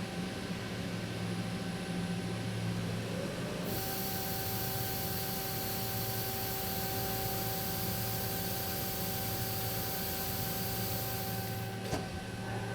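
CNC machine running with a steady hum and a few steady tones; about four seconds in, a high hiss like an air blast or coolant spray switches on and runs until shortly before the end, followed by a couple of sharp clicks.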